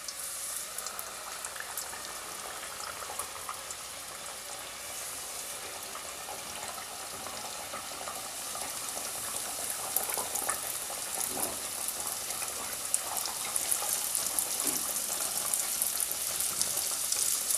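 Twisted strips of krebel dough deep-frying in hot oil in a pot: a steady sizzle and crackle that grows louder in the second half as more pieces go into the oil.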